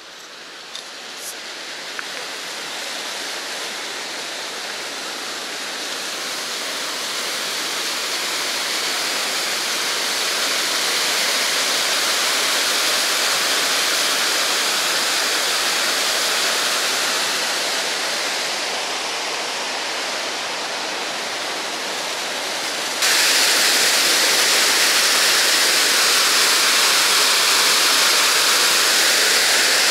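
Waterfall: a steady rush of falling water that grows louder over the first ten seconds or so, then jumps suddenly louder about two-thirds of the way through.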